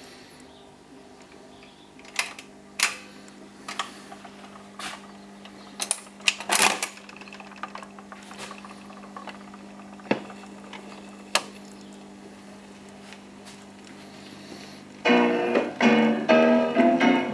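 Dansette Major Deluxe record player: a steady low hum under a series of mechanical clicks and clunks as the autochanger drops a record onto the platter and lowers the tone arm. The loudest clunk comes about six seconds in. About fifteen seconds in, music from the record starts playing through the player's speaker.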